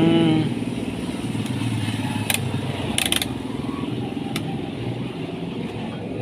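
A motor vehicle engine running steadily, with a few sharp clicks over it: one about two seconds in, a quick double click about three seconds in, and another a second later.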